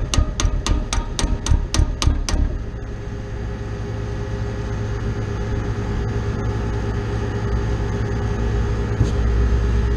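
Air-conditioning condenser unit running with a steady hum from its fan and compressor. Over the first two and a half seconds come about nine sharp clicks, roughly four a second, and a low rumble grows louder near the end.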